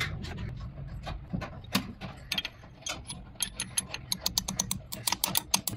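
Rapid, uneven metallic clicking from hand work on a steering box housing clamped in a vise, coming much faster from about three and a half seconds in.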